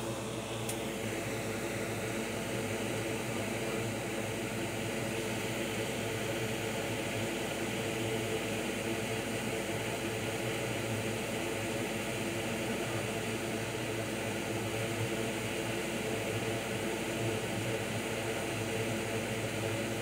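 Steady fan-like whir with a constant low hum underneath, unchanging throughout.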